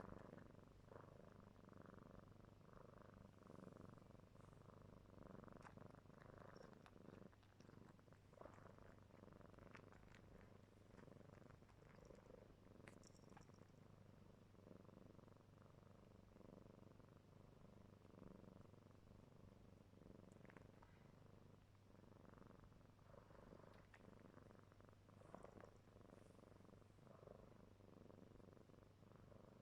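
A four-month-old kitten purring faintly and steadily while it suckles and kneads, with a few soft clicks now and then.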